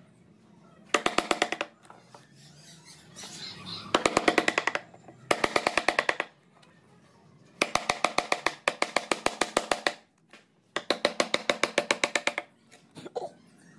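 Woodcarving chisel driven into the wood by quick, light mallet taps, about ten a second, with a ringing tone. The taps come in five short runs of one to two seconds, with brief pauses between them.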